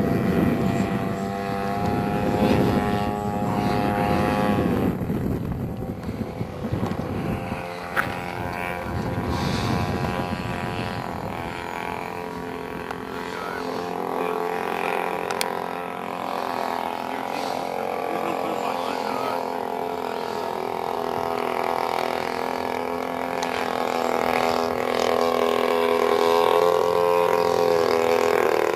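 Gasoline engine and propeller of a 1/3-scale Aeronca Champ RC model plane running steadily, its pitch drifting slightly up and down, with low wind rumble on the microphone in the first several seconds.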